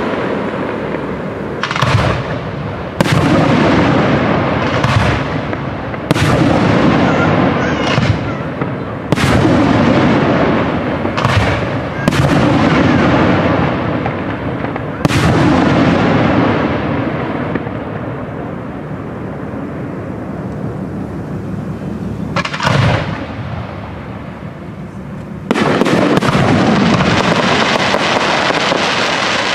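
Fireworks display: aerial shells bursting in a string of sharp bangs, each trailing off in a long rolling echo. A quieter stretch of fading crackle comes in the middle, and a denser, continuous barrage starts near the end.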